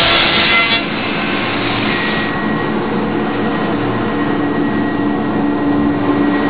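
Wood CNC router with its dust collector running steadily. The hissy cutting noise drops away about a second in and again about two seconds in, leaving a steady machine drone with a low tone.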